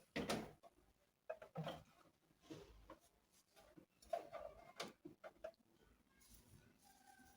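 Scattered light knocks and clicks of household items being handled and set down, several a second at times, some with a brief ring.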